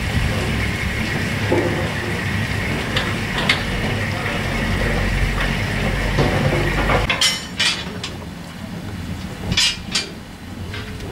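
Steady low rumble with a faint hiss from steam locomotives standing in steam in a shed yard. In the second half the rumble drops away and a few sharp metallic clanks and clinks follow.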